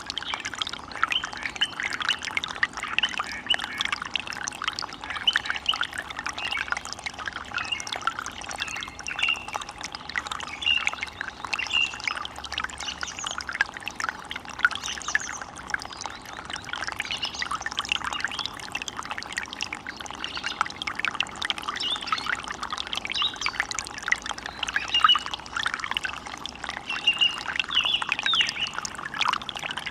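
Running water in a forest stream, a steady babbling rush, with short bird calls coming over it again and again.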